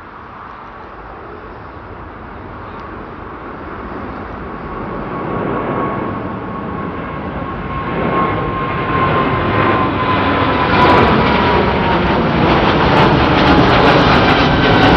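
Jet airliner departing: the engine noise at takeoff power grows steadily louder as the aircraft approaches. In the second half a high whine slides slowly down in pitch as it passes.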